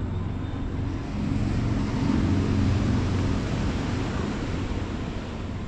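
A vehicle passing by, its engine and road noise swelling about a second in and fading away over outdoor background noise.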